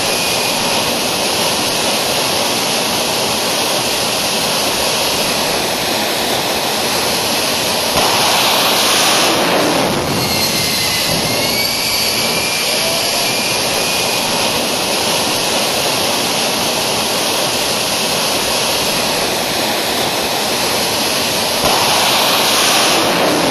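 1990 Mitsubishi Eclipse Turbo GS's turbocharged 2.0-litre four-cylinder engine running with a loud, steady rush and a thin high whine over it. The whine dips and climbs back about ten seconds in, and the noise swells louder briefly around eight seconds and again near the end. These are the strange engine sounds the owner is trying to track down.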